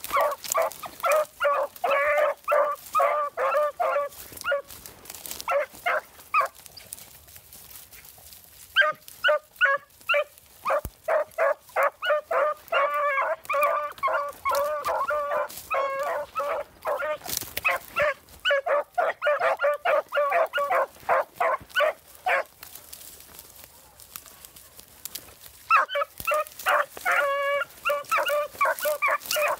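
Beagle puppies baying on a rabbit's scent trail: quick runs of high, repeated yelping cries, broken by short pauses before they pick up again.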